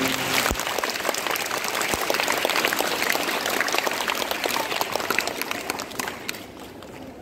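A crowd of children clapping; the applause dies away about six seconds in.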